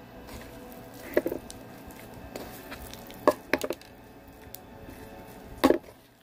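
Clumpy homemade slime packed with foam beads being squeezed and kneaded in the hands, giving a few short, sharp squelches and pops: one about a second in, two a little after three seconds, and the loudest near the end.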